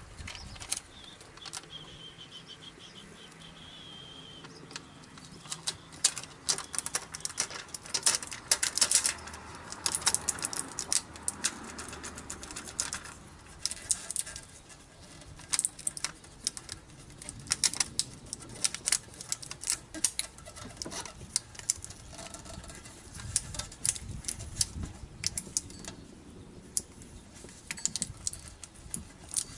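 Aluminium foil tape being peeled and handled by hand, crinkling and crackling. The crackle starts a few seconds in and comes in irregular spells of quick clicks.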